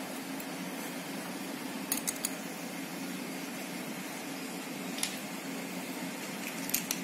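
Light metallic clicks and clinks as the small metal parts of an electric iron's plug (brass terminal pins, nuts, washers and a steel bracket) are handled and fitted together: a quick cluster about two seconds in, one at five seconds and a couple more near the end. A steady low hum runs underneath.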